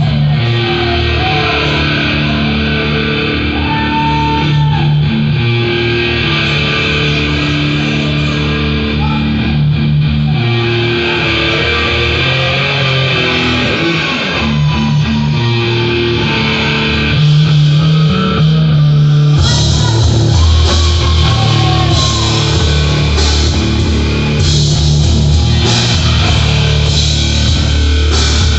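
Heavy rock music with distorted guitar and bass holding long notes, with a full drum kit and cymbals joining about two-thirds of the way through.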